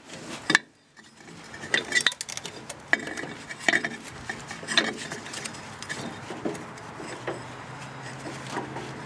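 Irregular metal clinks and knocks as a lawn tractor's steel variable speed pulley and its drive belts are worked into place in the frame bracket, with one sharp knock about half a second in.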